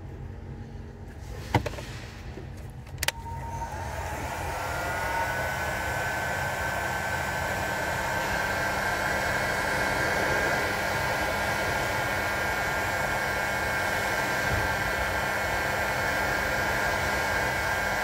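An electric heat gun is switched on with a click about three seconds in. Its fan spins up to a steady rushing run with a high whine while it shrinks heat-shrink tubing over a wire splice. A sharper click comes a little earlier.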